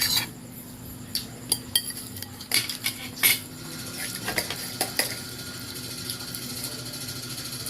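Spoons and forks clinking and scraping against plates and bowls during eating, in irregular sharp clicks that thin out after about five seconds.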